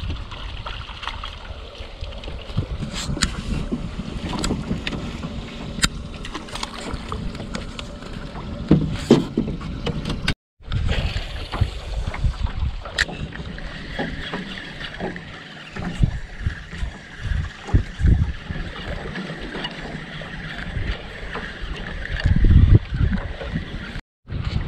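Wind buffeting the microphone over water lapping on a small fishing boat, with scattered sharp clicks and knocks.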